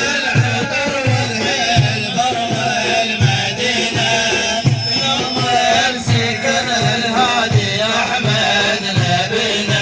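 Instrumental break in a Middle Eastern devotional song: a wavering melody over a steady low drum beat, about two beats a second.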